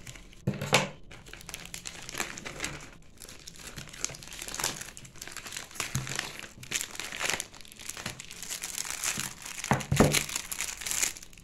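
Clear plastic packaging crinkling and rustling as it is cut open and pulled off a stack of comics, with two dull thumps, the louder about ten seconds in.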